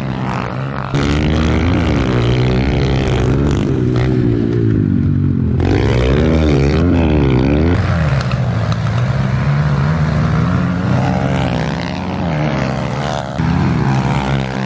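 Small pit bike engines racing, revving up and dropping back again and again as the riders accelerate and shift gears.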